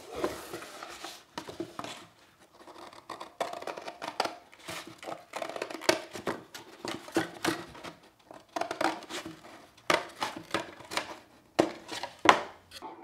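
Orange-handled household scissors cutting through corrugated cardboard: repeated sharp snips and crunches at an irregular pace, with the box being handled between cuts.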